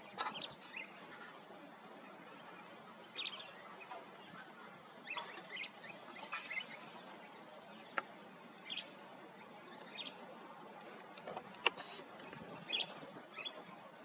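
Small songbirds giving short, scattered chirps every second or two, with two sharp clicks about eight seconds and twelve seconds in.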